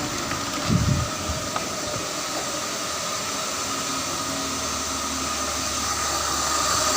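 BMW engine idling with its belt-driven accessories still connected (alternator, AC compressor, power-steering pump, water pump) and no viscous fan fitted, running steadily. There is a brief louder surge about a second in, and the sound grows slightly louder near the end.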